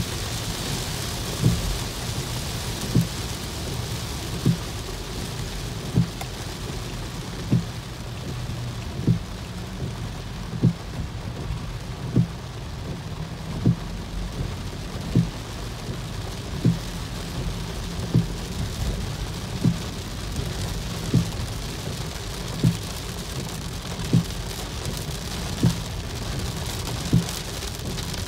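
Car windshield wipers sweeping, with a dull thump at each sweep about every one and a half seconds, over a steady hiss of rain on the windshield. The rain hiss eases in the middle and picks up again near the end.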